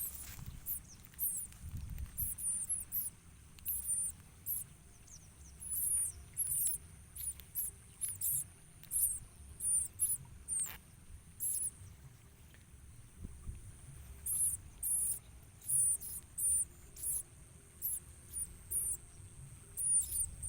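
Bar-winged prinias (ciblek) giving high, thin, squeaky calls, short notes repeated in quick clusters every second or so.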